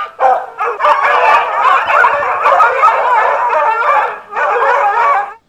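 Several dogs howling and yipping together in overlapping, wavering cries. They break off briefly about four seconds in, then stop abruptly near the end.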